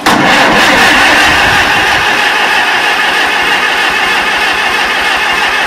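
Farmall M tractor's four-cylinder engine being cranked by its electric starter on a cold start, the loud cranking starting suddenly and running steadily.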